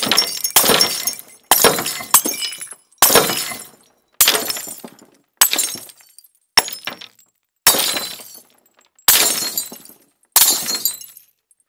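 Glass shattering sound effects, about ten crashes in a row, each starting sharply and tinkling away within a second or so.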